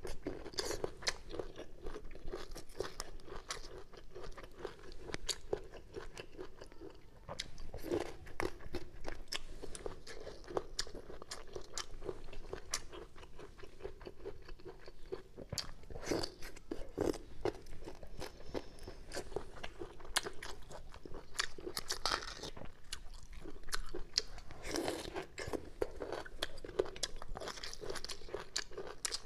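Close-miked chewing and biting of crisp bamboo shoots: a steady run of crunching clicks, with louder crunches now and then.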